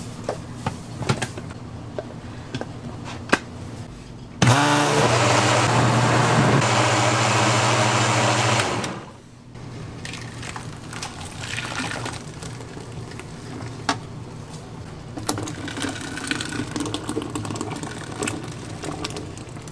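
An electric kitchen blender's motor spins up, runs steadily for about four seconds and stops, with small kitchen clatter before and after.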